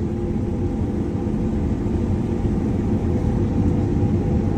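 John Deere S780 combine running steadily while harvesting, heard from inside the cab: an even engine and machinery drone with a constant low hum.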